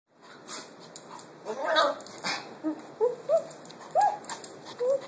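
Maltese puppies whimpering: a string of short whines, each rising then falling, from about halfway through, after two louder noisy bursts a little under two seconds in.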